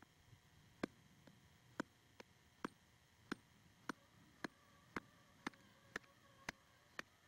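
A series of sharp, faint clicks, about two a second at uneven spacing, over a quiet background.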